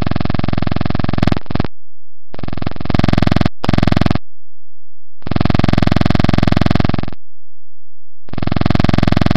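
Loud, steady electronic buzz at one fixed pitch, cutting in and out abruptly: it stops about a second and a half in, then comes back four more times in stretches of roughly half a second to two seconds with silent gaps between.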